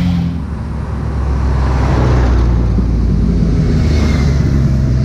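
Engines of a convoy of cars and touring motorcycles passing close by: a steady low engine drone that swells about two seconds in.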